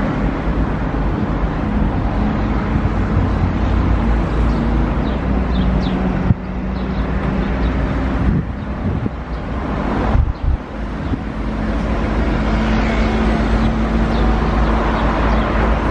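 Steady road noise of a moving double-decker bus and the city traffic around it, with the bus's engine humming underneath. The noise dips briefly about halfway through.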